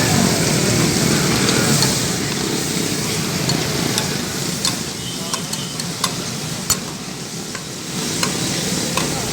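Liver masala sizzling on a tawa griddle, with a metal spatula clacking against the griddle now and then in the second half as it is stirred.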